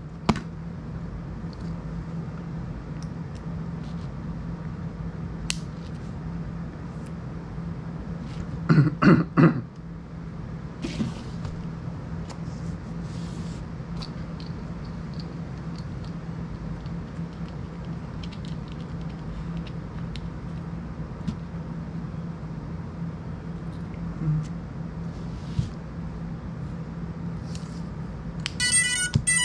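Small handling clicks over a steady low hum while the drone is worked on, with a short vocal sound about nine seconds in. Near the end, a quick run of high electronic beeps as the LiPo battery is plugged into the FPV drone: the motors' power-up tones from the ESC.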